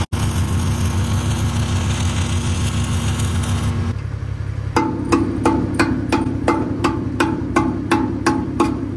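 Stick-welding arc crackling and hissing for about four seconds, then a chipping hammer striking the fresh weld to knock off the slag, about three sharp ringing metal taps a second. A steady low hum runs underneath throughout.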